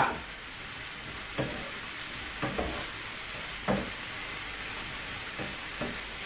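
Vegetables and beronok (sea cucumber) stir-frying in sauce in a wok: a steady sizzle, with the stirring utensil knocking and scraping against the pan about six times.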